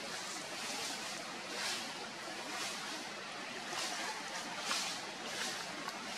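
Steady outdoor hiss that swells and fades in soft surges about once a second, with no clear single source.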